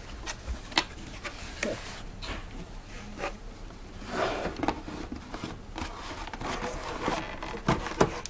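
Cardboard shipping box being opened and handled: flaps rustling and scraping, with several sharp knocks, the loudest near the end.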